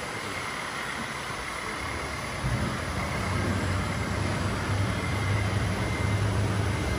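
Radio-controlled model truck running with a low, steady engine hum that comes in louder about two and a half seconds in, over a steady background hiss with a faint high whine.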